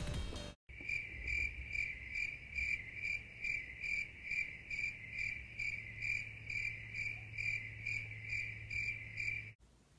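Cricket-chirping sound effect, the comedy cue for an awkward silence: a steady run of high chirps, about two and a half a second, that starts and cuts off suddenly.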